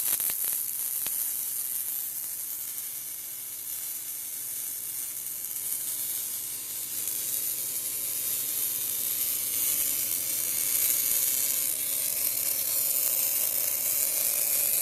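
Electric arc welding: a continuous crackling sizzle from the arc. It starts abruptly and grows a little louder over the second half.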